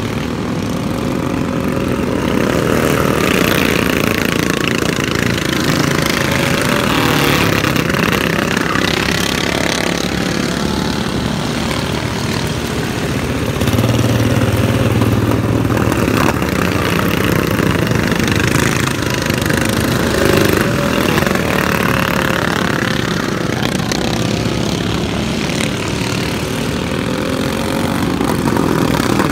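Several racing lawn mower engines running hard around a dirt track. Their pitch rises and falls as the mowers come past and move away, and the sound swells several times.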